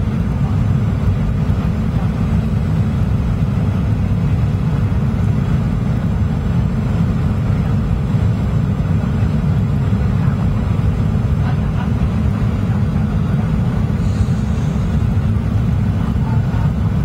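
Steady cabin noise of a Boeing 737-800 on its landing approach: a deep, even rumble of its CFM56-7B engines and rushing airflow, heard from inside the cabin beside the wing.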